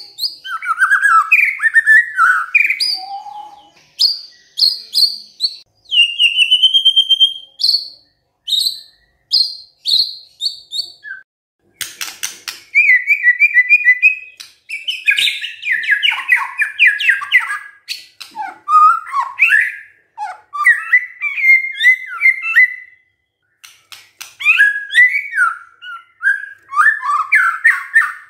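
White-rumped shama singing a long, varied song: clear whistles, sliding notes, quick runs of repeated notes and scratchy trills, in phrases of a second or two with short pauses between.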